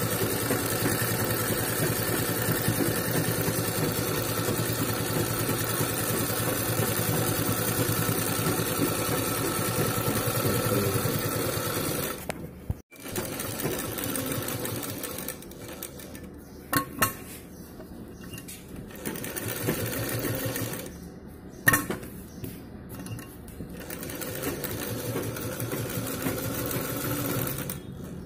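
Sewing machine stitching steadily for about twelve seconds, then stopping suddenly. After that it runs in quieter stops and starts with a few sharp clicks as the fabric is turned, and picks up again near the end.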